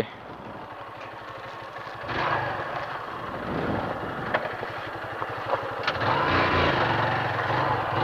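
Honda Fan 150 ESi motorcycle's air-cooled single-cylinder engine idling in an even low pulse. It gets louder from about two seconds in, and rises and falls in pitch near the end.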